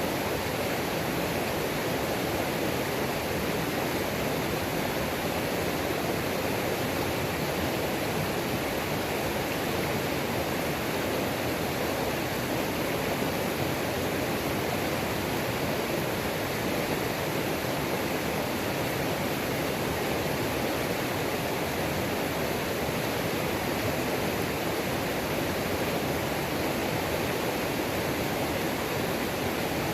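A waterfall on a mountain creek: steady, unbroken rush of falling and tumbling water.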